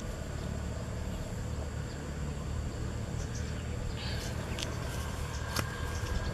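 Steady low rumble of wind on the microphone in an open field, with faint small clicks and rustles over it.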